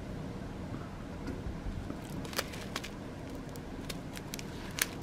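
Light, scattered clicks and crinkles of a small plastic zip bag of round resin diamond-painting drills being handled and turned, a handful of ticks mostly in the second half, over a low steady background hum.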